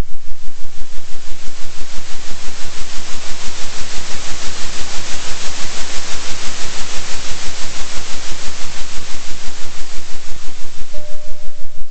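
Steady rushing noise, like pink or white noise, pulsing evenly about three times a second: a 3 Hz oscillation. The hiss grows brighter toward the middle, and a faint steady tone joins it near the end.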